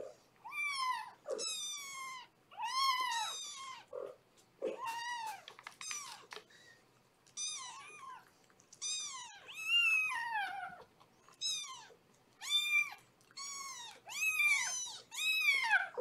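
Young kitten crying over and over in distress: a long run of short, high-pitched meows, each rising and then falling, about one or two a second.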